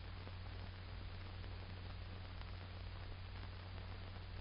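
Steady hiss with a low steady hum: the background noise of an old film soundtrack.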